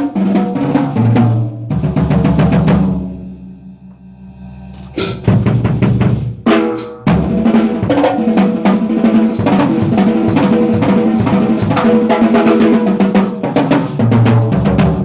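A Staccato drum kit with horn-shaped fibreglass shells being played: 6", 8", 10" and 12" toms, a 16" floor tom and a 22" bass drum, with snare and cymbals. The tom fills and bass drum hits thin out to ringing toms a few seconds in. After a loud hit around the middle, the kit goes into fast, dense tom and snare fills with steady bass drum.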